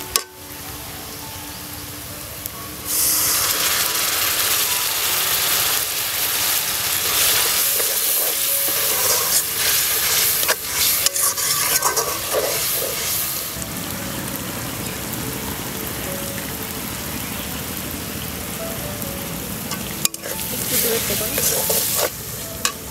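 Sliced onions and ground spices frying in oil in a steel karahi, stirred with a metal spatula. About three seconds in, the pan starts hissing loudly, the sign of water added to the hot spices, with scattered spatula clicks, then settles to a lower, steadier sizzle as the mixture cooks into a gravy. It hisses up loudly again near the end.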